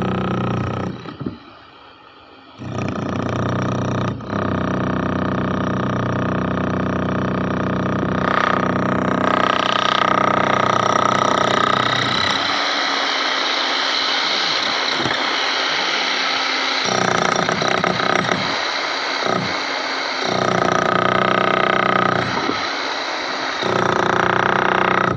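Concrete-cutting saw running loud. It eases off briefly about a second in, then comes back and cuts with a harsh grinding noise that surges and eases several times.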